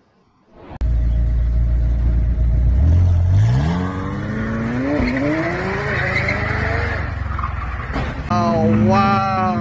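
A McLaren supercar's engine starts at a low, deep rumble, then revs up hard, rising steeply in pitch as the car launches. Its tyres squeal and spin as it slides. There is a sharp knock near the end, and music starts right after it.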